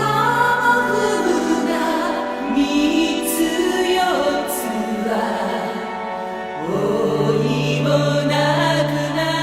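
Background music with chant-like choral singing over a held low drone; the drone drops out about a second in and comes back near the end.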